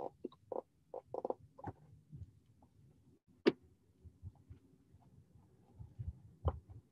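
Faint scattered clicks and knocks over a low hum, with two sharper clicks about three and a half and six and a half seconds in.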